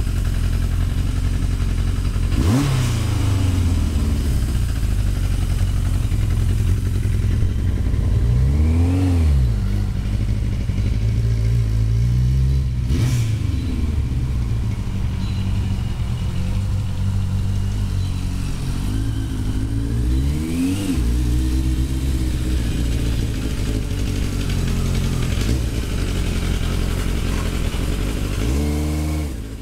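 1981 Yamaha XJ750's air-cooled inline-four engine idling, blipped about five times, each rev rising and falling back to idle.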